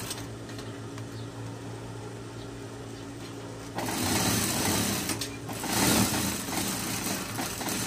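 Industrial single-needle sewing machine stitching a long seam: a steady motor hum, with the stitching growing louder about four seconds in.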